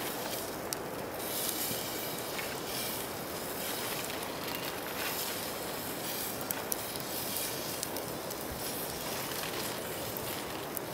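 Wood campfire burning, with scattered sharp pops and crackles over a steady rushing noise in which distant surf is faintly heard.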